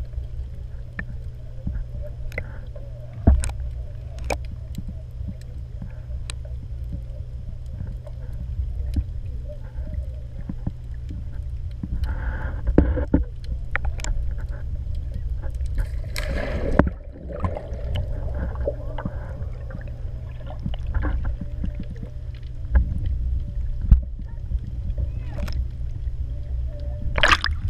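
Muffled underwater sound heard through a camera's waterproof housing: a steady low rumble with scattered sharp clicks and knocks and a few brief swishes of water.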